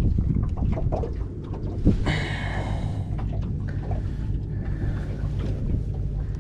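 Wind on the microphone over a steady low hum, with knocks and handling noise from a trevally being unhooked on a boat deck, and a brief rasping sound about two seconds in.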